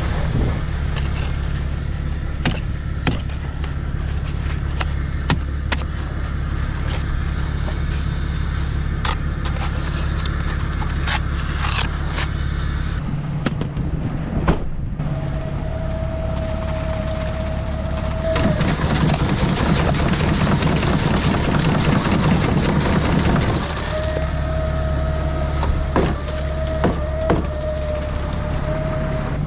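Work truck's engine running with a steady low hum and frequent knocks and rattles. A steady whine comes in about halfway through, drops out for a louder rushing stretch, then returns near the end.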